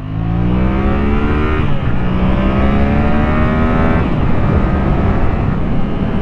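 2019 Yamaha MT-07's parallel-twin engine pulling under throttle, its pitch rising steadily and then dropping at upshifts about a second and a half in and again about four seconds in.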